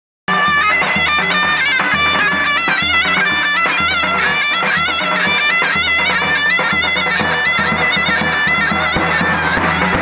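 Zurna (a double-reed shawm) playing a fast, ornamented folk dance melody, loud and reedy, over the steady beat of a davul bass drum. The music starts abruptly a moment in.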